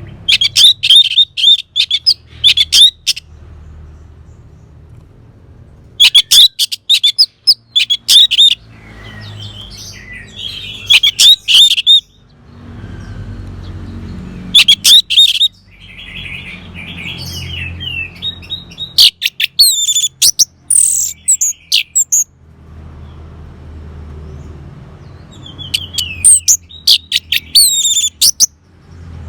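Orange-headed thrush singing: about six loud phrases of rapid, sweeping high notes, each lasting one to three seconds, with pauses of a few seconds between them.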